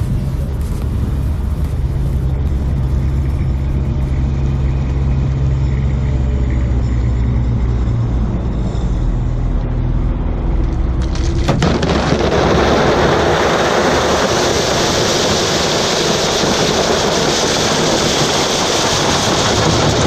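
A vehicle engine running steadily; about eleven and a half seconds in, a loud, even rushing noise starts suddenly and covers it.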